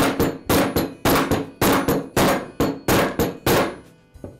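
Mallet tapping a long steel socket to drive a new ball bearing onto the shaft of a DeWalt angle grinder's armature, seating the rear armature bearing. A steady run of sharp strikes, about three a second, each with a short ring, which stops about three and a half seconds in.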